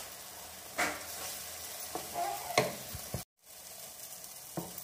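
Chopped onions and tomatoes sizzling in a nonstick frying pan while a wooden spatula stirs them, with a few sharp scrapes and knocks of the spatula against the pan. The sound cuts out for a moment just after three seconds.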